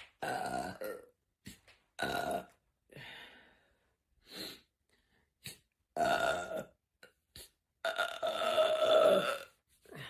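A woman belching repeatedly, a string of separate burps. The last one, near the end, is long and drawn out and the loudest.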